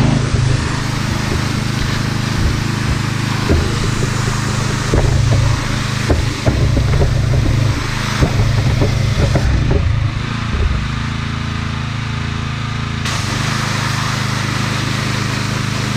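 Gas-powered pressure washer running steadily, its small engine drone under the hiss of the water jet spraying down a muddy mini dirt bike, with scattered light knocks from the spray.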